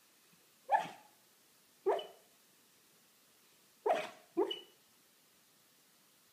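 A dog barking in its sleep while dreaming: four short barks, the last two close together.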